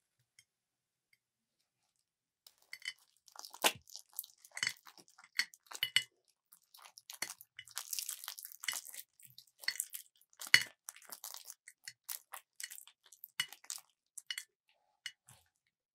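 A clear plastic piping bag crinkling and crackling as it is squeezed and crumpled by hand, with plastic pearl beads clicking against each other as they are pushed out of its cut tip. Irregular sharp crackles start about two and a half seconds in and are thickest around the middle.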